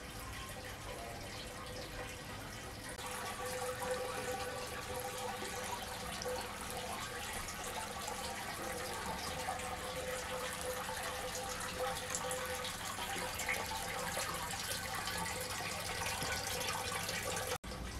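Water trickling and splashing from bowl to bowl down a tall tiered fountain of metal bowls, a steady sound that grows a little louder about three seconds in. It cuts out for an instant near the end.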